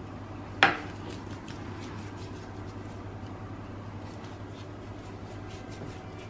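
One sharp knock about half a second in, over a steady low hum, followed by faint soft ticks as a pastry brush dabs egg wash onto puff pastry on metal baking trays.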